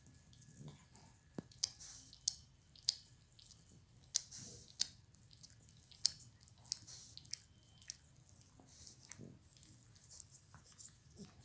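Pugs licking each other: faint, wet licking and lip-smacking, irregular sharp smacks a few per second.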